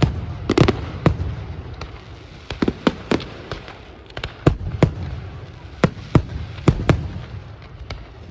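Firework display: aerial shells bursting overhead in an irregular run of sharp bangs, about a dozen in eight seconds, each with a short rumbling echo.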